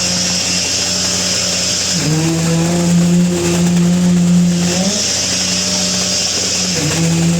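Concrete needle vibrator running, a loud steady motor hum whose pitch dips about two seconds in, rises near five seconds and dips again near the end, alternating with a high hissing rattle.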